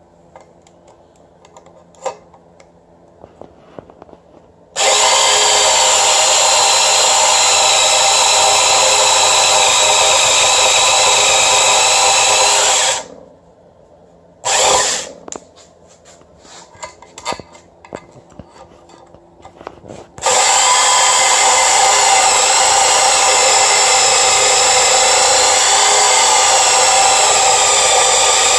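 Power saw cutting through the aluminum bellhousing of a Mazda Miata transmission, notching it to clear a starter bracket. Faint handling clicks at first; the saw starts about five seconds in and runs steadily with a wavering whine, stops for a few seconds with a brief burst in between, then runs again from about twenty seconds in.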